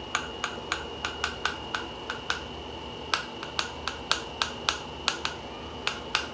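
Rapid sharp taps on a plastic loose setting-powder jar, about four a second in two runs of roughly ten, then two more near the end. The powder is being knocked loose from a container that it is hard to get out of.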